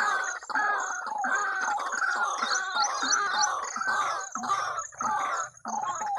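Recorded waterhen calls played through a small portable speaker as a lure: loud, harsh calls repeated in quick succession, with a brief break about five and a half seconds in.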